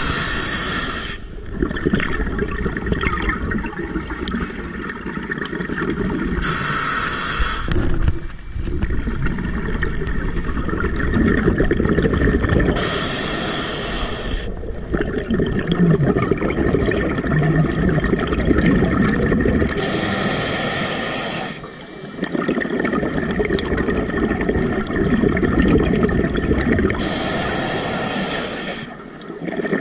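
Scuba diver breathing through a regulator underwater: a short hiss on each inhale, about every seven seconds, each followed by a longer rumble of exhaled bubbles.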